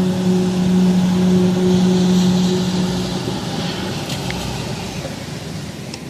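A steady low droning hum with a few overtones over a rushing noise; the hum fades out about halfway through.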